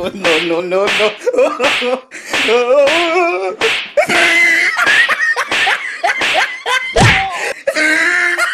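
A rapid string of hard hand slaps to a man's head and back, about three a second, with wavering pained cries between them and one heavier thud about seven seconds in.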